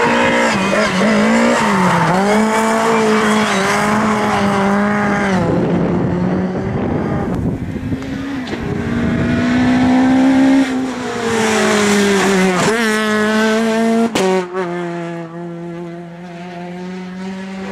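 Race car engine running hard at high revs, its pitch rising and dipping with throttle and gear changes, with tyres squealing at times. There is a sharp click about fourteen seconds in.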